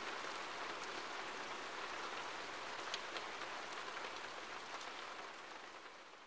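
Faint, steady hiss of rain-like noise with scattered light ticks, fading away near the end.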